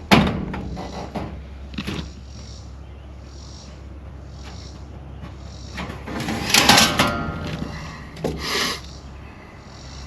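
A sharp knock, then two louder rattling, scraping sounds about six and eight seconds in, over a low steady hum.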